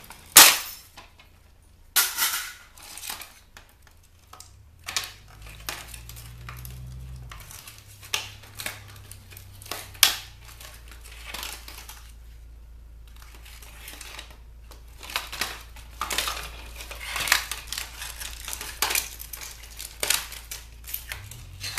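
Plastic case of a CD/tape player radio being pried and pulled apart by hand: an irregular run of clicks, cracks and knocks of hard plastic parts, the sharpest crack about half a second in.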